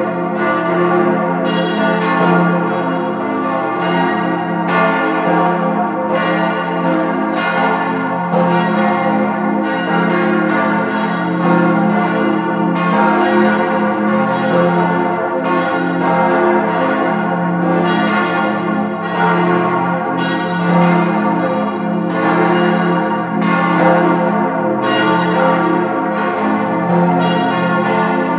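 Peal of the four bronze church bells cast by Rüetschi of Aarau in 1904, tuned F, A, c, f as an F-major chord, the largest about 8,100 kg. Their strokes overlap in dense, continuous ringing with a deep hum underneath.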